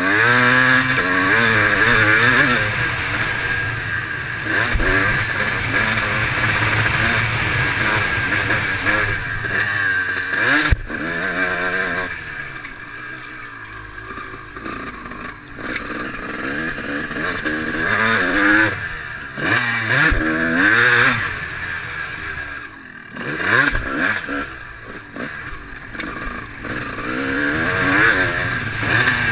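Motocross bike engine revving up and falling back again and again as the rider accelerates, shifts and rolls off, heard from a helmet-mounted camera. A few sharp knocks cut through along the way.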